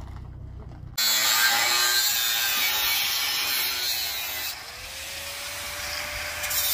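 A low engine rumble from a parked car, then about a second in a sudden switch to a loud, steady, harsh hissing-scraping noise of a metalworking power tool at work, easing somewhat a little past halfway.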